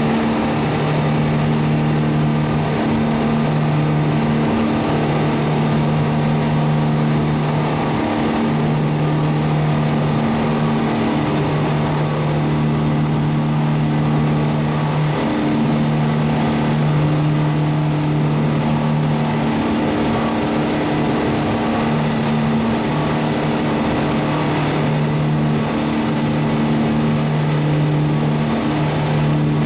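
A fishing boat's engine running steadily under way at cruising speed: a low, even drone over a constant rushing noise.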